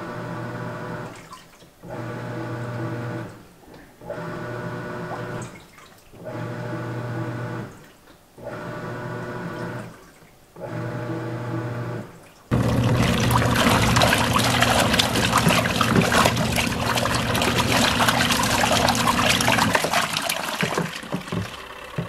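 Panda automatic single-tub portable washing machine agitating with its lid closed: the motor hums in runs of a second or two, with short pauses where the drum reverses direction. About halfway through this gives way to a louder, steady churning and sloshing of water and clothes in the open wash tub of a twin-tub portable washer, on its heavy wash cycle.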